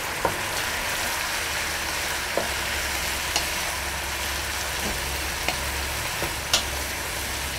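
Vegetables sizzling steadily as they are stir-fried in a wok, with a few light clicks of the wooden spatula against the pan as it tosses them.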